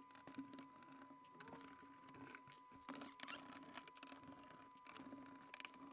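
Faint clicks and light scraping of a screwdriver working the screws out of a VCR's sheet-metal bottom cover, close to silence.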